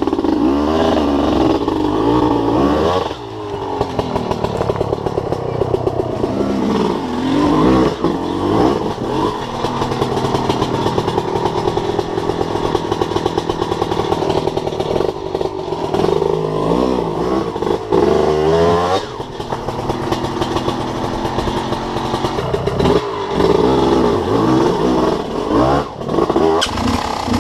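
Enduro dirt bike engine revving up and down over and over in short blips as it works its way up a steep rocky climb.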